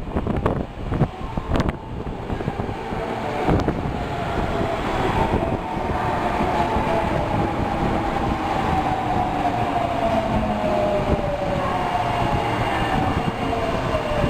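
Osaka Metro Tanimachi Line subway train running, with a few clicks early on. From about five seconds in, the electric motor whine falls steadily in pitch as the train slows.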